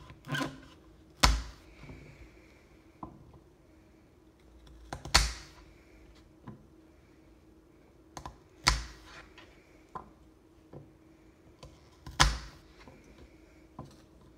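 Camping knife chopping carrots on a cutting board: four loud knocks of the blade on the board, about three and a half seconds apart, with lighter taps and cuts in between.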